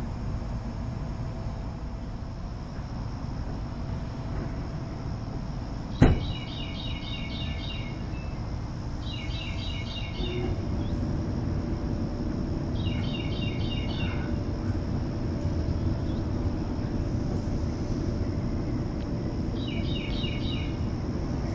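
Backyard ambience: a steady low rumble of distant traffic under a constant high insect drone. A bird calls four times, each a quick run of repeated high notes lasting about a second and a half, and a single sharp click comes about six seconds in.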